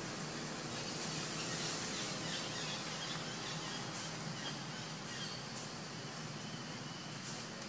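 Outdoor ambience: a steady hiss of background noise with a few faint, short bird chirps.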